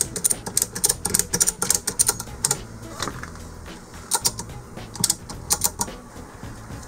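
Ratchet of a lifting rig on the boom clicking in quick runs, about six clicks a second, as the boat's inboard engine is hoisted. It pauses about two and a half seconds in and resumes in shorter runs.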